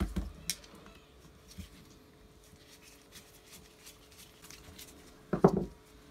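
Workbench handling of a vintage electric drill being dismantled: a screwdriver working at the handle's screws, with light clicks and small knocks, then a louder clunk of the drill's metal body being handled near the end.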